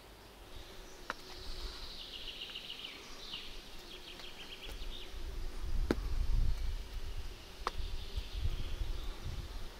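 Forest ambience: small birds calling with short high trills and chirps, mostly in the first half. There are a few sharp clicks, and an uneven low rumble, like wind on the microphone, swells in the second half.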